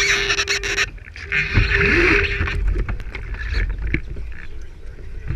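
Water rushing and splashing along the hull of a radio-controlled IOM sailboat, heard up close from a camera on its deck. The rush cuts off about a second in, returns briefly, then eases to lighter lapping with a few sharp knocks, over a steady hum in the first half.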